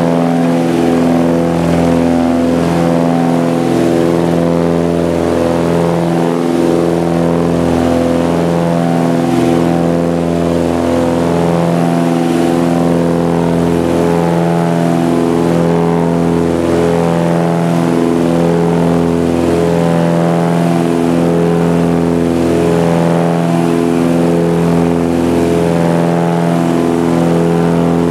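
Small private plane's propeller engine droning steadily at climb power, heard from inside the cabin, with a slow regular pulsing in the low hum every two to three seconds.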